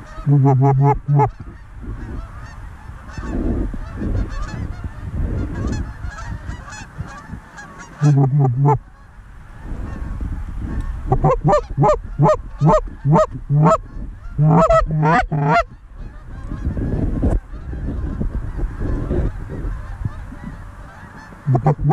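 Canada goose honking: loud, close honks in short runs, a brief one about half a second in and another about 8 s in, then a fast string of honks and clucks from about 11 to 15 seconds, with fainter honking between.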